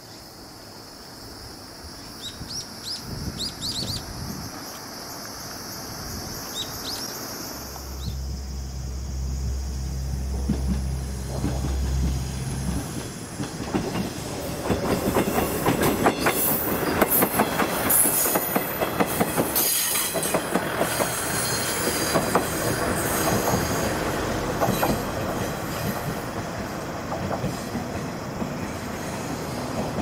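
Trains rolling on rails. In the first part a Tobu 50000 series electric train passes with short high-pitched wheel squeals. Later a louder, closer passage with the rapid clatter of wheels over rail joints.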